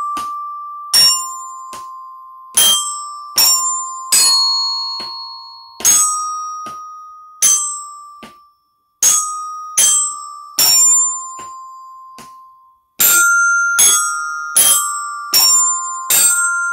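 Glockenspiel (bell kit) struck with mallets, playing a slow single-note melody. Each note rings out and fades, with a pause of about two seconds past the middle before the notes pick up again.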